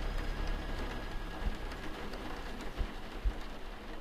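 Steady rain patter, a dense crackle, with faint held tones underneath and a few low thumps, slowly getting quieter.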